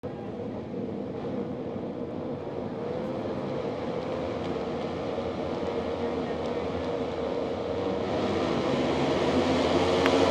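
A grid of single-cylinder flat-track race bikes idling and blipping their throttles on the start line, with pitches wavering. The engines get louder over the last two seconds as the riders rev for the start.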